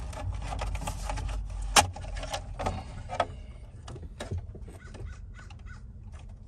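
Clicks and knocks of hard plastic trim and parts being worked loose from a Fox-body Mustang's steering column, with one sharp snap about two seconds in.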